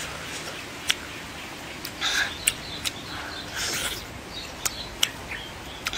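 Close-up eating sounds from biting and sucking raw fruit pulp. Two short noisy slurps come at about two and three and a half seconds in, among scattered sharp clicks of the mouth and teeth.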